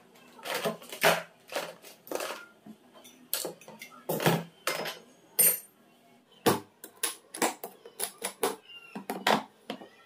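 Hand tools (screwdrivers, pliers, tape measure) being put one after another into a Greenfield 19-inch plastic toolbox: an irregular series of sharp clacks and clatters of metal and hard plastic, some ten or more knocks, with short pauses between them.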